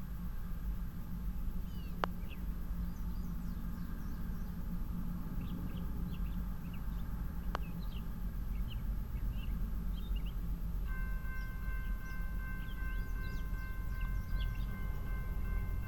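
Birds chirping over a steady low rumble. About eleven seconds in, a railroad crossing's warning bell starts ringing steadily as the signal activates for an approaching train.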